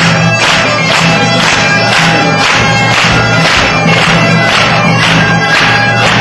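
Bagpipe playing a lively tune over its steady drone, with a drum keeping a regular beat of about two strokes a second.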